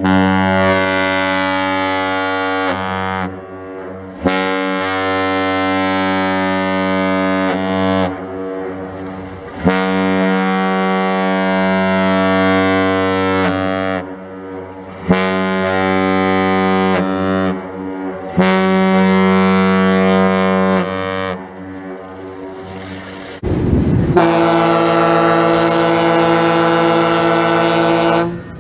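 Large air horn of the ship-horn kind, sounding five long, deep blasts of about three seconds each with short gaps between them. Near the end a second, higher and brighter horn holds one blast for about five seconds.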